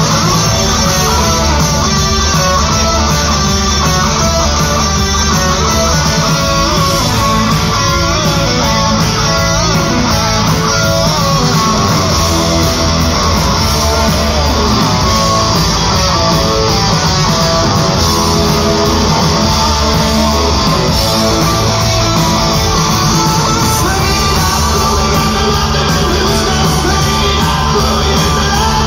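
Live rock band playing loudly, electric guitar to the fore over bass and drums.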